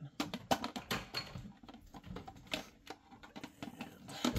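Light plastic clicks and taps as the clear acrylic body of a Red Sea RSK9 protein skimmer is handled and set down onto its plastic base and pump, with one sharper knock near the end.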